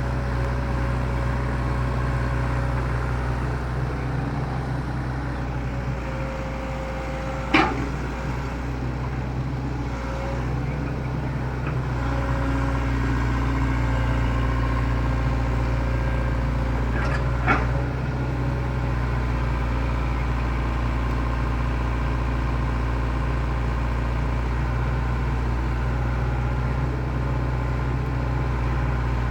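Excavator's diesel engine running steadily, with two sharp metallic knocks about ten seconds apart.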